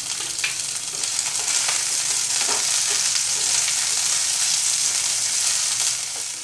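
Sliced onion, garlic and green chillies sizzling steadily in hot oil in a frying pan, with a few light clicks as the white part of spring onion is added by hand.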